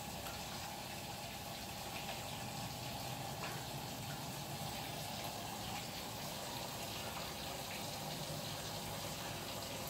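Steady rushing background noise like running water, with no distinct events.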